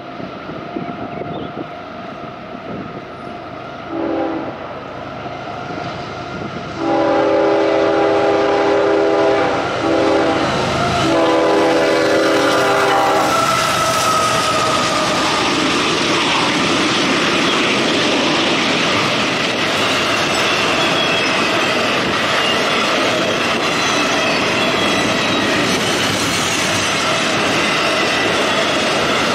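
CSX intermodal freight train. The lead GE locomotive's horn sounds a short note, then a long blast, a short one and a final long one as it approaches the grade crossing. The locomotives pass, and a long string of double-stack container cars rolls by with steady wheel clatter on the rails.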